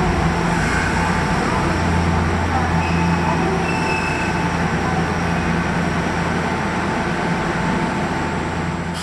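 Electric commuter train running at a station platform: a steady low rumble with faint, even motor tones, easing off slowly.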